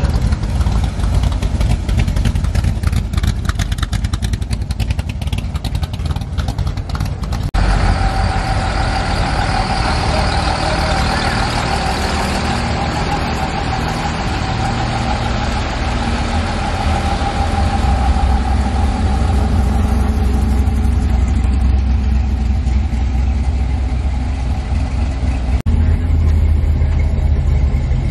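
Car engine running steadily with a strong low rumble. The sound changes abruptly about seven seconds in and again near the end.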